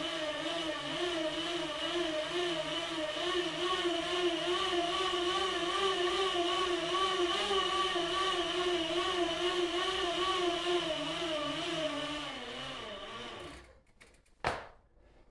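Aluminium bicycle rollers whirring under a bike being pedalled at an easy pace, a steady hum that wavers slightly in pitch in a regular rhythm. Near the end the hum dies away, and then there is a single sharp click.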